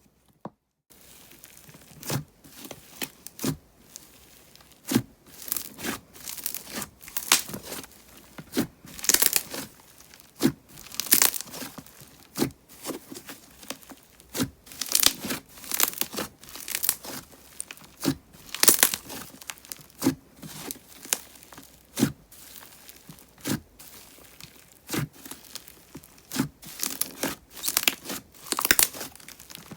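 Thick, glossy slime with clay mixed in, squeezed and folded by hand, giving off irregular crackling bubble pops, some sharp and heavy, about one or two strong ones a second.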